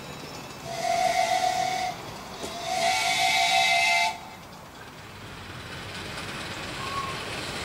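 Miniature steam locomotive's whistle blown twice: a blast of about a second, then a slightly longer one of about a second and a half, each with a hiss of steam.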